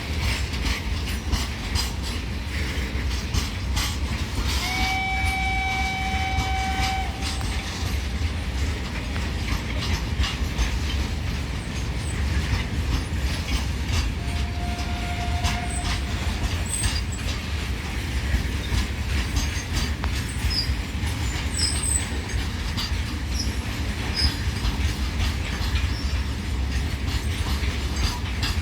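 Goods train rolling past: a steady low rumble with the rapid clatter of wagon wheels over the rail joints. A steady tone rings for about two seconds some five seconds in, and a shorter, fainter one around fifteen seconds in.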